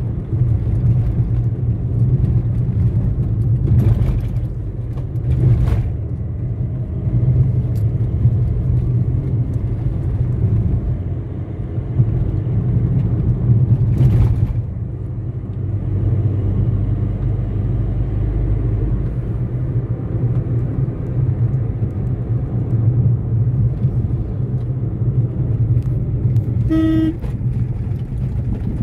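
Steady low rumble of a car driving at speed on a highway, heard from inside the cabin, with a few brief thuds. A short horn toot sounds near the end.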